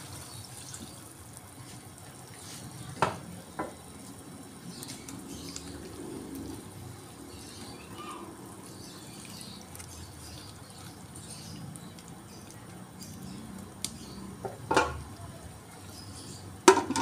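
Chop suey vegetables and chicken simmering in a metal wok while a wooden spatula stirs them, knocking against the pan a few times. Near the end a metal lid clanks down onto the wok.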